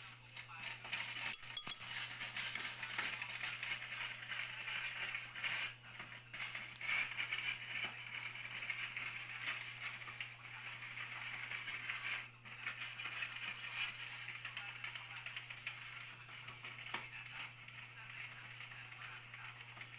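Light clinking and scraping on a glass blender jar as liquid is poured in from a can and stirred with a thin stick, over a steady low hum and background voices.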